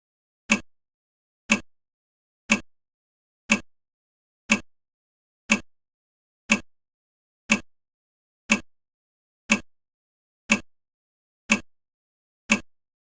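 Countdown timer ticking: one short, sharp tick each second, thirteen in all, with silence between.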